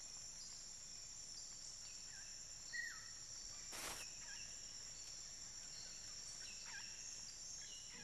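Faint nighttime insect trilling, one steady high-pitched drone, with a few short falling chirps and a single sharp tick about four seconds in.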